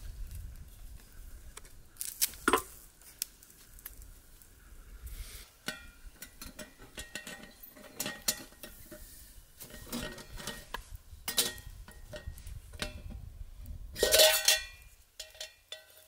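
Metal camp cookware clinking and clanking as a pot and its lid are handled over a campfire. There is a run of light knocks with a metallic ring, and a louder clatter of metal near the end.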